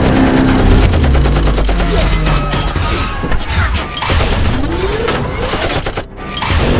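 Dubbed sound effects for a toy car turning into a robot: a car engine running, then from about two seconds in a rapid clatter of mechanical clicks and clanks with short whirs rising in pitch.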